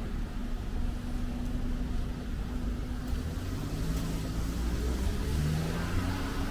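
Street traffic: a motor vehicle's engine running close by, its pitch rising a little in the second half as it speeds up, over a steady low rumble. Tyre hiss builds near the end.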